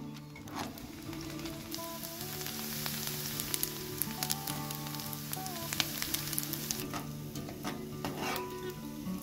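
Sliced onions sizzling as they fry in hot oil in a wok, with a perforated metal skimmer clicking and scraping against the pan as they are stirred.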